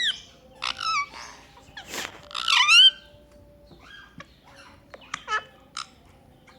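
Pet parrot calling in short, high-pitched chirps and whistles, with a harsh squawk about two seconds in, followed at once by the loudest run of quick rising-and-falling whistles.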